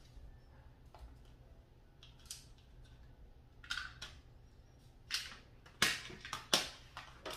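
Clear adhesive tape being pulled off the roll and torn: a series of short ripping sounds, most of them bunched together in the last few seconds.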